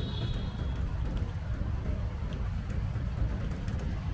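Uneven low rumble of wind buffeting the microphone on a moving bicycle.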